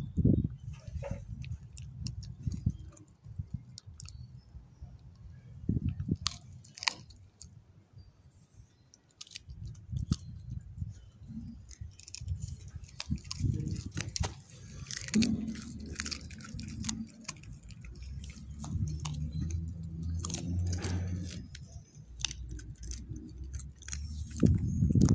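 A beagle chewing and crunching raw chicken breast bone: irregular sharp crunches and clicks of teeth on bone, with short pauses between bouts. A louder low rumble comes near the end.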